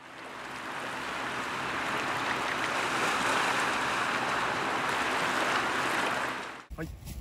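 Sea surf washing over and around a rocky shore: a steady wash of waves that fades in over the first couple of seconds and cuts off abruptly near the end.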